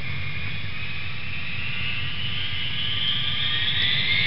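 Jet airliner engines running with a steady low rumble and a whine that slowly rises in pitch, growing a little louder toward the end.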